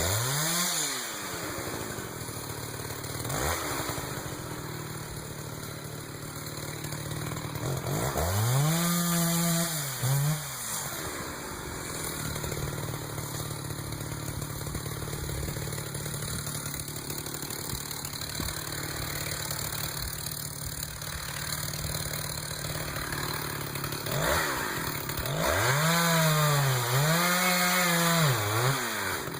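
Two-stroke chainsaw, a Jonsered 820, felling a cedar. It revs up sharply at the start, goes to full throttle again around nine seconds in and near the end, and runs steadily at lower revs in between.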